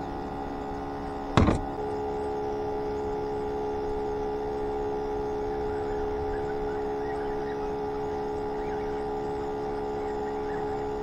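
Steady whine of a bait tank's aerator pump sitting right under the camera, with one sharp thump about a second and a half in.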